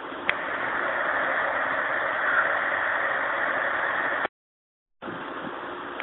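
A sharp click, then about four seconds of steady rushing noise that stops dead. Total silence follows for under a second where two recordings are joined, then a low hiss returns.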